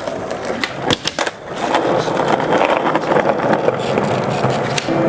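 Skateboard wheels rolling on asphalt, with a couple of sharp clacks of the board about a second in. The rolling grows louder from about a second and a half in.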